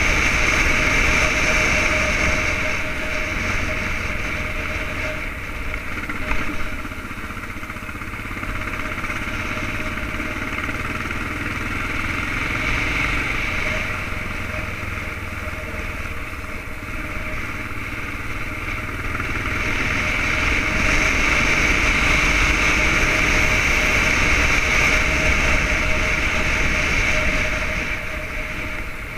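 Yamaha XTZ 600 Ténéré's single-cylinder four-stroke engine running steadily under way, mixed with wind rushing over a helmet-mounted camera. It is louder over the first few seconds and again from about twenty seconds in, and softer in between.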